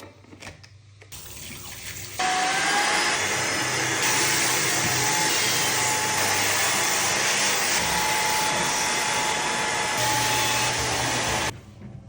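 Wet-extraction upholstery vacuum running with a steady rushing suction noise and a motor whine. It starts abruptly about two seconds in and cuts off near the end.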